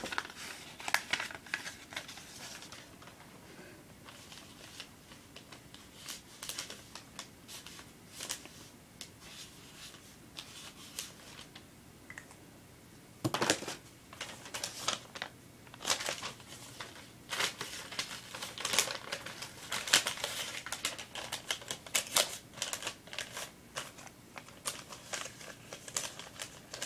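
Writing a number on a piece of paper and handling the paper: irregular short scratches, taps and rustles in bursts, busiest in the second half.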